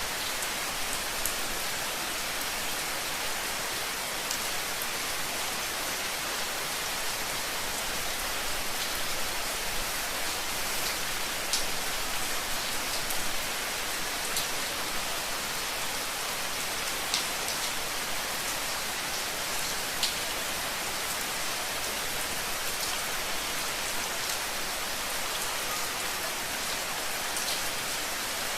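Steady rain falling, an even hiss with scattered louder drops striking a surface.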